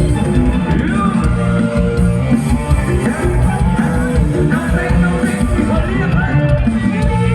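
Live Thai ramwong band music with a steady beat, played loud and without clear lyrics.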